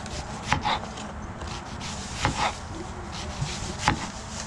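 Kitchen knife slicing a peeled onion into thin rounds on a bamboo cutting board: three sharp cuts, each ending in a tap on the board, about a second and a half apart.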